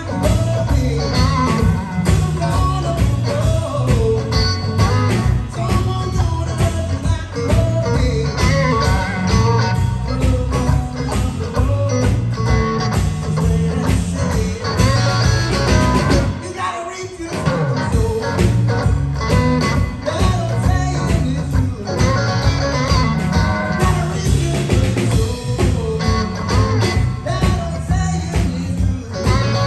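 Live blues-rock trio playing: electric guitar, electric bass and drum kit, with a young man singing lead vocals. About halfway through, the band stops for about a second, then comes back in.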